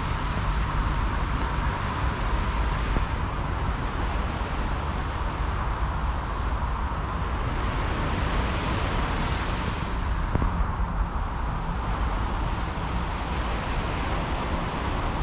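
Wind buffeting the microphone, a heavy low rumble, over a broad rushing noise that swells and eases twice.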